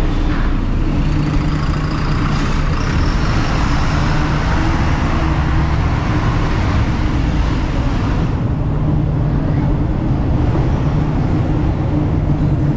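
City street traffic: a vehicle engine running steadily nearby with a constant low hum, under the rush of passing traffic.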